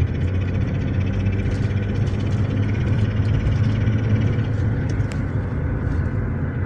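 Lifan X60 driving under load, heard from inside the cabin: steady engine and road drone with a rustle and knock from the gearbox. The owner traced the knock to worn upper and lower bearings on the gearbox's secondary shaft.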